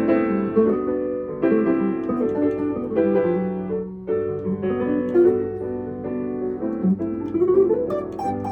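Instrumental music from a piano and a second instrument playing together: sustained chords and melody notes over a steady low bass note, with a brief break about four seconds in.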